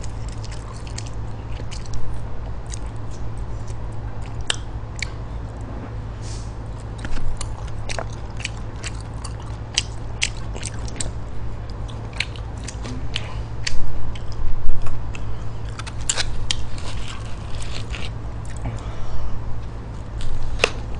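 Close-miked chewing and biting of spicy stir-fried pork intestines, with scattered short clicks of chopsticks picking food from the takeout container. A steady low hum sits underneath.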